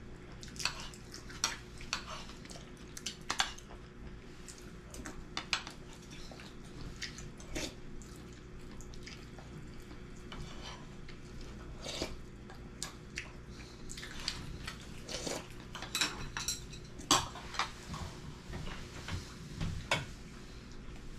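Tableware clinking during a meal: chopsticks and utensils tap against ceramic and wooden bowls and dishes in scattered light clicks, busier about two-thirds of the way in, over a low steady hum.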